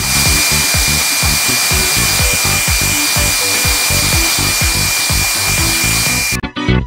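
Handheld hair dryer blowing, a steady rush of air with a thin high whine, over a background music track; the dryer cuts off sharply near the end.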